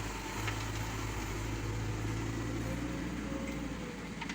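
Diesel engine of a JCB 1CX compact backhoe loader running steadily with a low, even hum.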